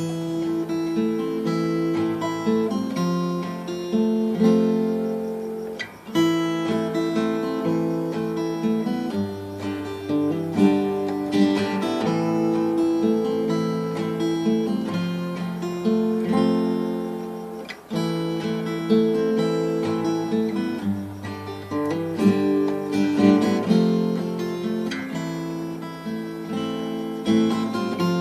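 Acoustic guitar strumming chords, changing chord every couple of seconds, as the instrumental introduction to a song.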